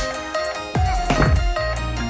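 Electronic dance music with a heavy kick drum about four beats a second, synth tones and deep bass.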